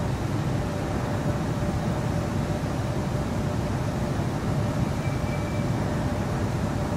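Steady low rumble and hum of car-plant machinery at a paint-shop dip-coating tank, with a faint steady tone throughout. A short, faint high tone sounds about five seconds in.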